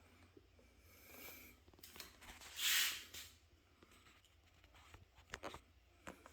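Metal squares being handled and set against each other on a bench: a few light clicks and taps, with a short hiss about two and a half seconds in.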